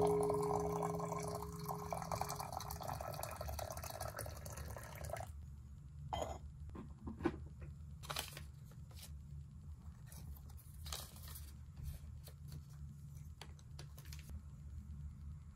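Hot water pouring from a kettle into a clay teapot, a steady splashing stream that stops abruptly about five seconds in. Scattered light clicks and knocks follow as the teapot is handled, over a low steady hum.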